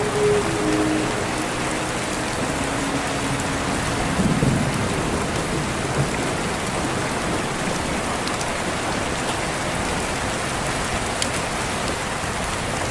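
Steady heavy rain with a brief low rumble about four seconds in. The last few held notes of a song's backing fade out at the start.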